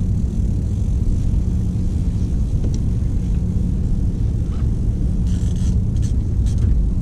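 Boat motor running with a steady low hum and rumble. A few short scratchy sounds come over it about five to six and a half seconds in.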